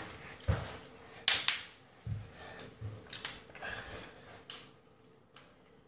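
Hard plastic Lego pieces clacking and clicking as a Lego butterfly knife is handled and flipped, with about eight separate sharp clacks at irregular intervals, the loudest about a second in.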